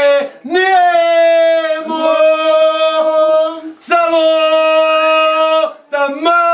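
A man singing a Sicilian devotional song to the Madonna, unaccompanied, in long held notes with short breaks for breath between phrases.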